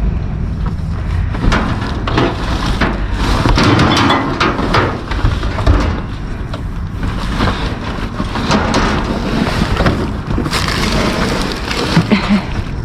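Trash being rummaged and shifted in a dumpster: an irregular run of knocks, scrapes and clatter as heavy items are pulled about, over a steady low rumble.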